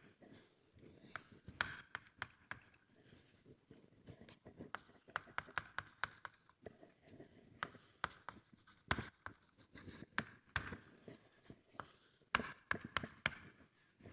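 Handwriting on a lecture board: bursts of quick taps and short scratching strokes as a formula is written out, with brief pauses between the bursts.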